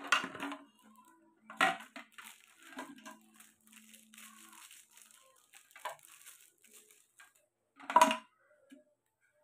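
Hard plastic water bottle parts (lid, handle and straw pieces) being handled, making several short clicks and knocks, the loudest about eight seconds in.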